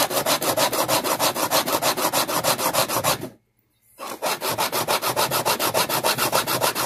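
Flush-cut fret file rasping rapidly back and forth across the ends of hard EVO gold fret wire along a guitar fretboard edge, filing them flush. The strokes stop briefly about three seconds in, then resume.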